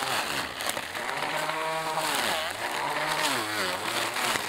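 Elecicopo 21V cordless weed eater's electric motor whirring as it cuts big weeds, its pitch sagging and recovering several times as it bogs down in the tall growth.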